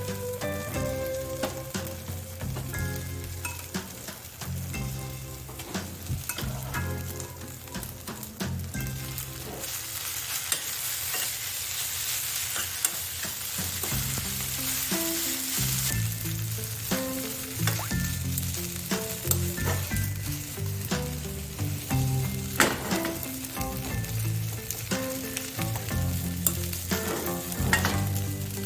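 Dry curry sizzling as it fries in a pan and is stirred, with a few sharp clicks of the utensil against the pan. The sizzle swells loudest about a third of the way through.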